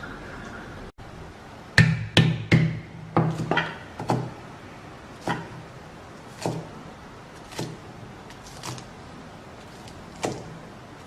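A series of sharp knocks with a short low ring: several in quick succession, then about one a second.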